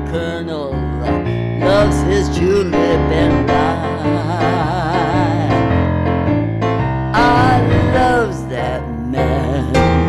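An older woman's singing voice with a microphone, accompanied by piano chords on a digital keyboard, with a long note held with wide vibrato around the middle.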